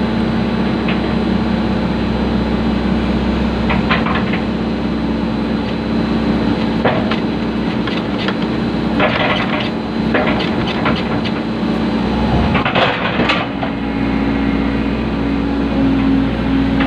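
Excavator engine running steadily under load, with several short crunching noises as the bucket presses a drain culvert down into place.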